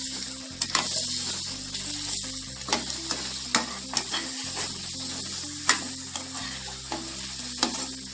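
A steel spoon stirs grated coconut into bubbling jaggery syrup in a non-stick pan, cooking down the sweet coconut filling for poli. The syrup sizzles steadily, and the spoon scrapes and knocks against the pan about eight times.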